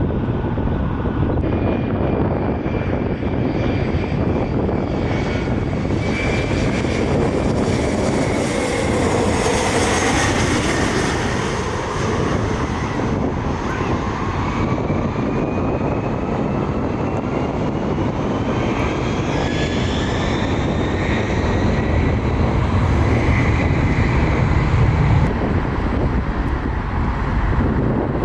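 Passenger airliner passing close by, its engines giving a steady low rumble under whining tones that slide in pitch, first falling and then rising for several seconds. The rumble is loudest near the end.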